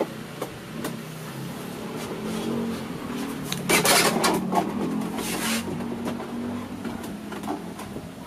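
Hard plastic of a scooter's under-seat storage compartment clicking, knocking and scraping as it is worked loose by hand, with a louder scraping rush about four seconds in and again a second later. A low engine hum runs underneath.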